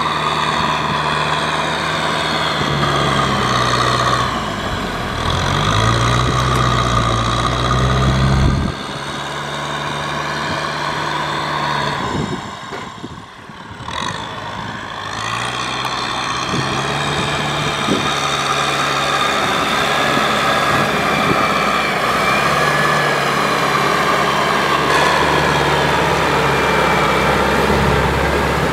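Farm tractor's diesel engine running under varying load, its note rising and falling as the revs change. There is a sudden drop in engine speed about nine seconds in and a brief fade around thirteen seconds.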